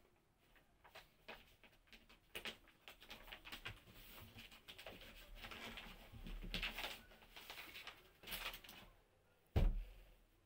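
Crinkling and rustling of a packaged cloth suit being unwrapped and unfolded by hand, in a run of short scratchy bursts, with one sharp thump near the end.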